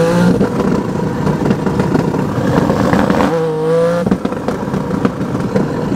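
2JZ straight-six in a manual Toyota MK5 Supra accelerating hard, heard from inside the cabin: the engine climbs in pitch, breaks off about three seconds in as it shifts up, then pulls hard again.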